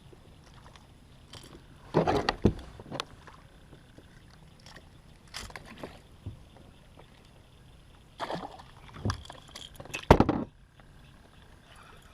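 Water splashing and knocking around a fishing kayak in several short bursts, scattered through a low background.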